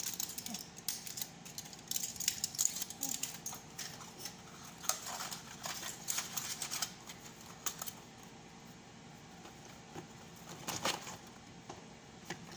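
Kitchen knife cutting a tomato held in the hand: irregular small clicks and scrapes, busiest in the first two-thirds and thinning out toward the end.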